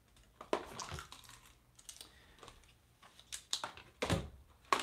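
Gear being rummaged through and handled: a string of irregular clicks, knocks and rustles, with a louder thump about four seconds in.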